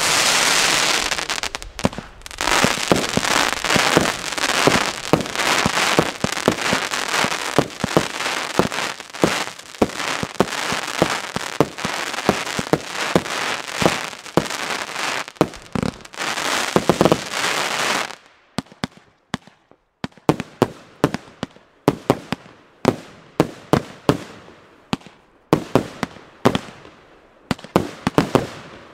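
Fireworks bursting in the air: a dense, rapid stream of bangs for about the first two-thirds, which drops off suddenly. After that come single bangs and pops, roughly one or two a second.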